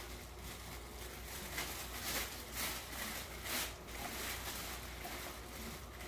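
Thin polyethylene plastic bag crinkling and rustling as it is pulled off a coffee maker, in irregular bursts that are loudest in the middle.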